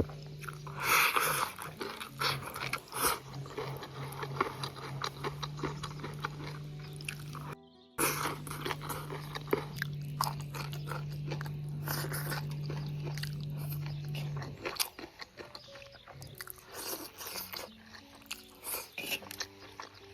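Close-up crunchy chewing and biting of crisp stir-fried bamboo shoots and pork, with many short crunches, over background music of held low notes. The sound drops out briefly about halfway through.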